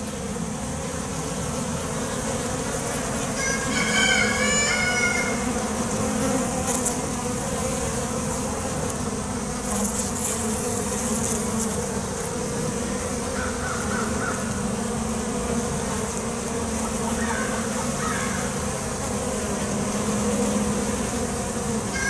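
A colony of honeybees buzzing over the open top bars of a hive, a steady, even hum.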